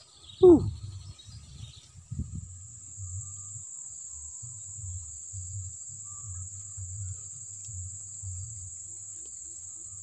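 Insects droning in one steady high-pitched tone that sets in about a second and a half in, over an uneven low rumble on the microphone. About half a second in, a short falling vocal sound is the loudest moment.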